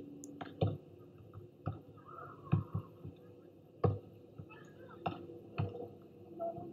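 Volleyball being struck in a rally: a string of sharp slaps of hands and arms on the ball, about a second apart.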